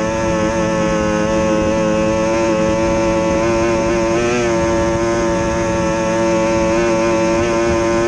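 Outboard motor of an SST 60 tunnel-hull race boat held at a steady high-revving pitch, heard from on board. The pitch wavers briefly about four seconds in, then settles again.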